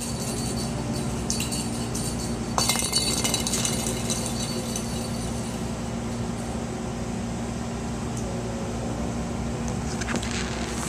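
Steady hum of a trailer's air conditioner, with a cluster of sharp clinks and rattles about three seconds in and a few more near the end.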